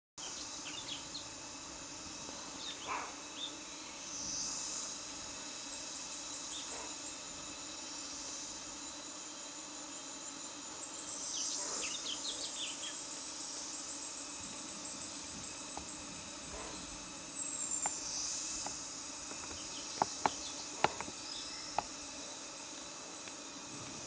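Forest ambience of insects trilling steadily and high-pitched, with a fast pulsing trill that comes in about halfway through. A few short bird chirps and clicks are scattered over it.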